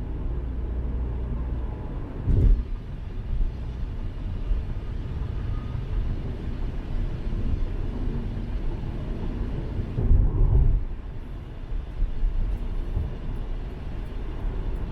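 Car driving, heard from inside the cabin: a steady low rumble of road and engine noise, with short louder bumps about two seconds in and again around ten seconds in.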